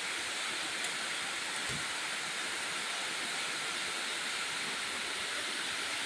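Steady background hiss, with a faint click and a short low thump in the first two seconds.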